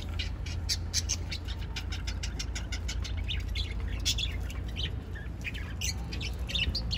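A flock of small caged birds, budgerigars among them, chirping rapidly and continuously in short high calls, over a steady low rumble.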